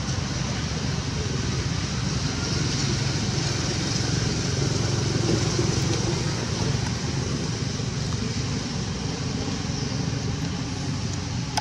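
Steady motor-vehicle noise of traffic, swelling slightly around the middle.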